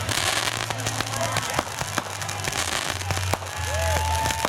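Fireworks going off: a run of sharp pops and crackles over a low rumble.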